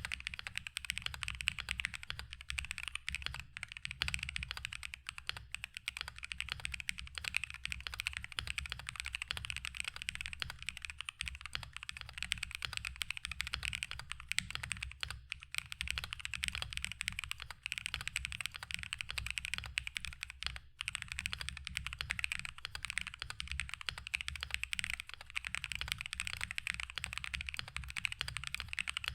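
Continuous fast typing on a mechanical keyboard fitted with factory-lubed Pulling Keys Princess switches: a dense clatter of keystrokes.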